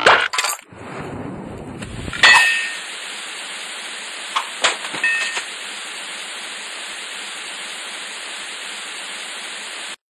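A string of sound effects: a few sharp knocks, a low rumble, then a loud metallic clang about two seconds in that rings briefly, followed by a steady hiss with a few light clinks and dings.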